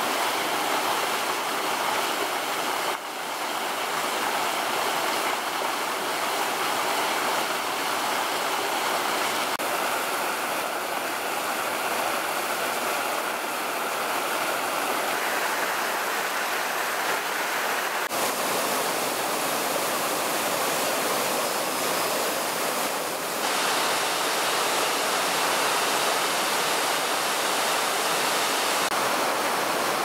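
Mountain stream and waterfall rushing steadily over boulders into a rocky pool. The water sound shifts abruptly in tone and level three times, about 3, 18 and 23 seconds in.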